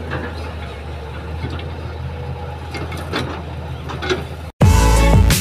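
Kobelco hydraulic excavator's diesel engine running steadily, with scattered knocks as its bucket works at a dirt bank. Near the end it cuts off abruptly into loud music.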